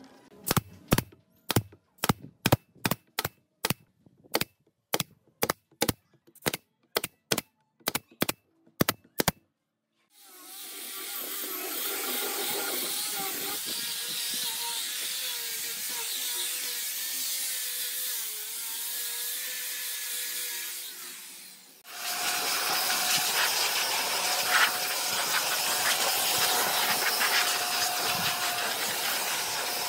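About twenty sharp knocks, roughly two a second, during the first nine seconds. Then a power sander runs steadily on a pine table top for about eleven seconds, and after a brief pause an electric handheld blower runs, blowing air over the table.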